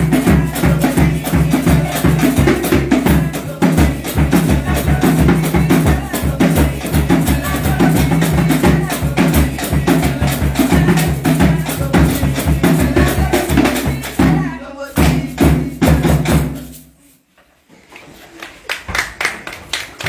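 Live hand drumming with percussion and voices singing along in a fast, steady beat. The music stops abruptly about three-quarters of the way through. After a brief lull, voices come back in.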